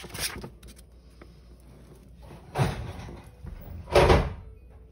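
Pages of a hardcover dictionary being flipped and riffled, giving soft papery swishes. A louder thump of the heavy book being handled comes about four seconds in.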